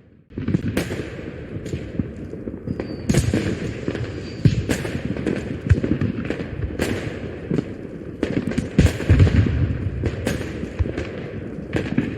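Dubbed-in sound effect of aerial fireworks: a dense, continuous run of booming shell bursts and crackling bangs, many overlapping. It starts after a brief dropout at the very beginning.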